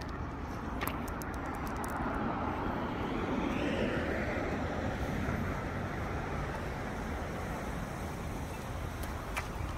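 Street traffic noise: a car passes, its tyre and engine noise swelling to a peak about four seconds in and then fading back into the steady traffic hum. A few light clicks sound about a second in and once more near the end.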